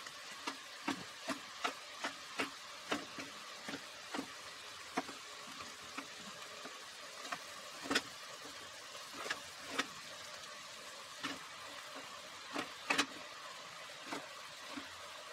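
Kitchen knife slicing a zucchini and knocking on the cutting board: a run of short sharp knocks, about two a second at first, then sparser and irregular, over a steady faint hiss.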